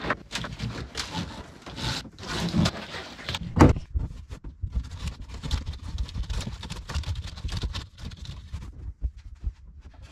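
Hands working wiring in a jet ski's engine compartment: irregular rustling, scraping and knocking of cables, plastic wire loom and trim, with one sharper knock about three and a half seconds in.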